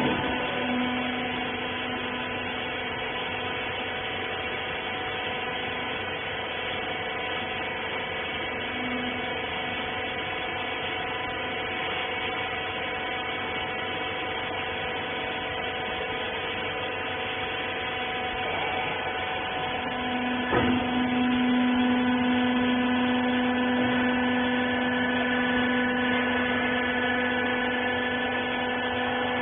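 Wiper-rag bagging baler machine running with a steady motor hum and whine of several held tones. There is a clunk at the start and another about 20 seconds in, after which the lowest hum grows louder.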